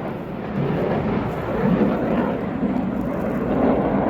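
Jet aircraft flying low overhead: a loud, steady rumble with no break, swelling slightly near the middle and again near the end.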